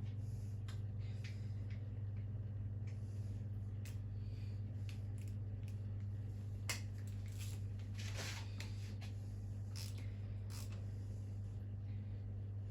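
Scattered, irregular light clicks and a couple of short scrapes from hand tools working on a stripped-down engine block, over a steady low hum.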